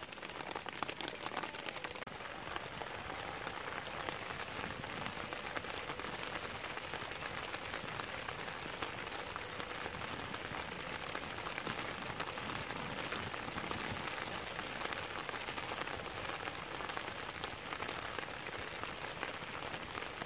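Rain falling quite hard, a steady dense patter of drops.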